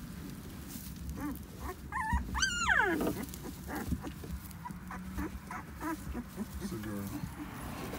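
Young puppies whimpering and squealing. One loud, high squeal comes about two and a half seconds in and drops steeply in pitch, with shorter whimpers around it.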